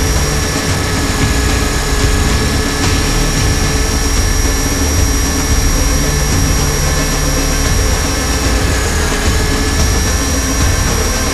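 Align T-REX 500 electric RC helicopter running steadily, heard from a camera inside its scale Black Hawk fuselage: a steady high motor and gear whine over rotor noise and a low rumble.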